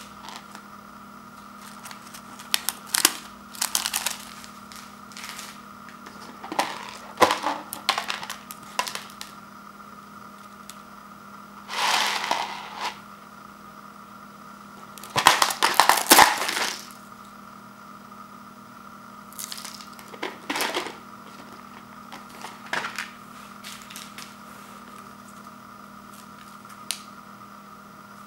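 Foil and plastic seasoning sachets crinkling and rustling as they are handled and lifted out of a paper instant-noodle bowl, with light scrapes and taps on the bowl, in scattered bursts that are loudest about halfway through. A faint steady hum runs underneath.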